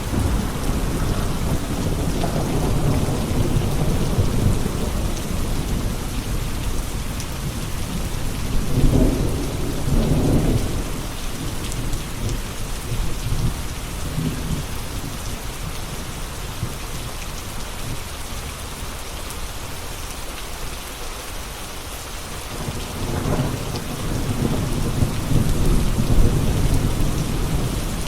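Steady rain, an even hiss, with low rolls of thunder swelling in the first few seconds, again about ten seconds in, and near the end.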